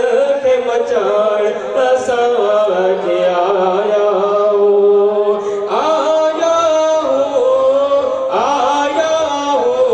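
A man singing a Sufi devotional chant through a microphone, unaccompanied by clear instruments, in long drawn-out, wavering phrases. A new phrase starts about six seconds in and another near the end.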